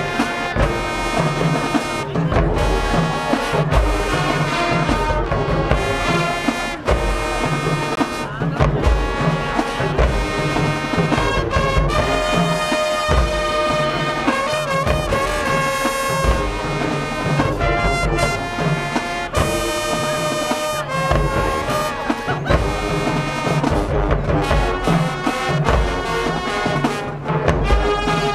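High school marching band playing: brass section with trumpets and trombones holding loud chords over heavy bass drum hits.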